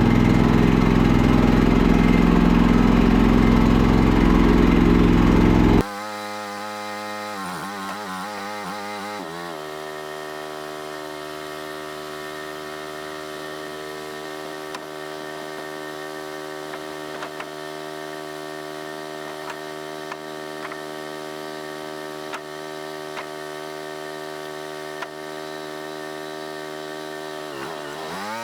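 A small gasoline engine running loud and close; about six seconds in the sound cuts abruptly to a quieter, steady engine drone. Its pitch dips and wavers briefly a couple of times, about seven to nine seconds in and again near the end.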